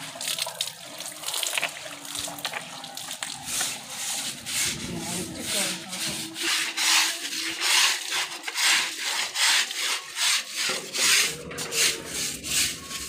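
Brisk scrubbing strokes on the wet woven cord of a charpai (rope bed), about two to three a second, getting louder from about six seconds in.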